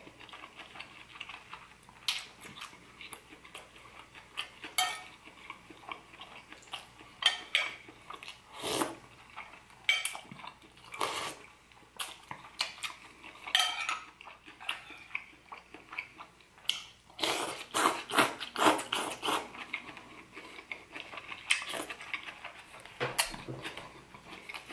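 Eating soup from a ceramic bowl: a metal spoon clinks and scrapes against the bowl again and again, with chewing between spoonfuls. The clinks come thickest a little past the middle.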